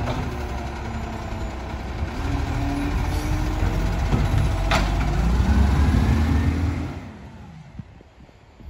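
Side-loading garbage truck's diesel engine and hydraulic lifting arm working as the arm empties a wheelie bin. The engine revs up in the second half, with one sharp clack about halfway through, and the sound drops away abruptly near the end.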